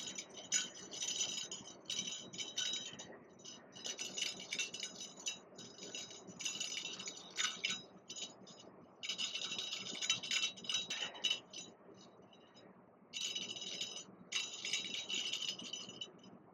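Fishing reel's drag buzzing in several spells of a few seconds as a hooked carp pulls line off the spool, then falling quiet near the end.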